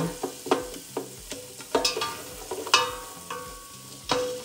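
Chopped Vidalia onion sautéing in butter, sizzling as a utensil stirs it and scrapes the bottom of the pot. Irregular knocks and scrapes run through it, a few of them leaving a short metallic ring from the pot.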